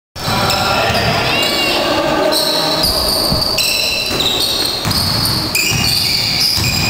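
Basketball game sound in a sports hall: a basketball bouncing on the court among the echoing noise of play.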